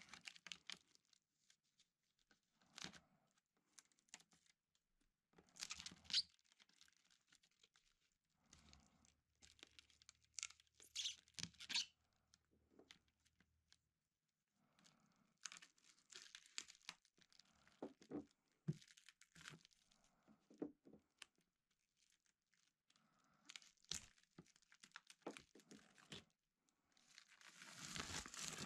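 Plastic stretch wrap being cut with a knife and peeled off a hard plastic cover, in irregular short bursts of crinkling and tearing. The longest and loudest stretch comes near the end as the film is pulled away.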